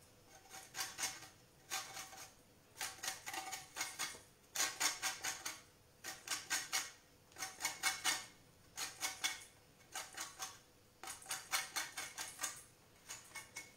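Lemon rubbed against a metal box grater to take off its zest: about nine bursts of quick rasping strokes with short pauses between them.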